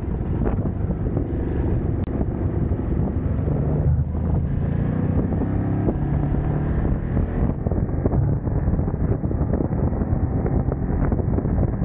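Ducati Monster 937's L-twin engine running as the bike is ridden, its pitch shifting with the throttle, with wind buffeting the microphone.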